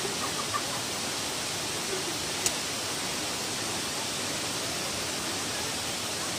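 Steady rush of a waterfall and stream over rocks, with one sharp click about two and a half seconds in.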